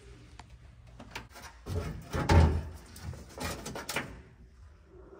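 Scattered knocks and clatters from hands working on the car, with one heavier thump a little over two seconds in.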